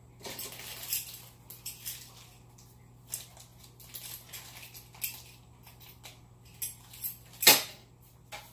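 Handling a newly unboxed oil catch can and its packaging: a run of irregular light rustles and metallic clicks and clinks, with one loud knock about seven and a half seconds in.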